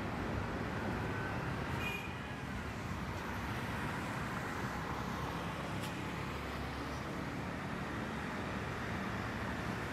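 Steady road traffic noise from cars and other vehicles passing on a nearby road.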